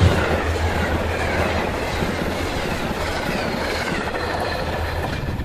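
Amtrak passenger train running past at speed close by: stainless steel coaches rolling on the rails behind a GE P42 diesel locomotive, the low engine hum fading out about five seconds in.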